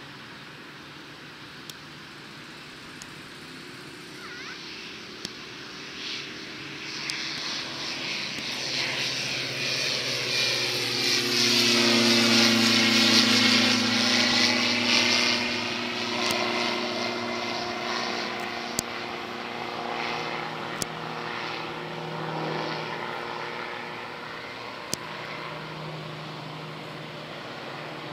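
Diamond DA40D single-engine propeller plane with a diesel engine at takeoff power, lifting off and climbing past: the sound swells to its loudest about halfway through, drops in pitch as the plane goes by, then fades as it climbs away.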